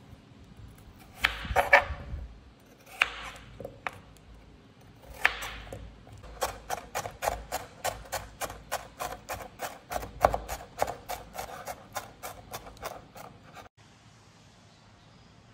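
Kitchen knife cutting through raw peeled potato on a bamboo cutting board in a few crunching strokes. Then rapid, even chopping at about four strokes a second as bell pepper is diced on the board, stopping near the end.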